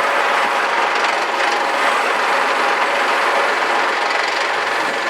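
Vehicle engine running steadily under a rushing noise, with no clear pitch or rhythm.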